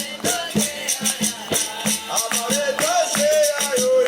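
Capoeira music: a voice singing over a steady rhythm of jingling and rattling percussion and a repeated low drum-like note. The singing line becomes clearer about halfway through.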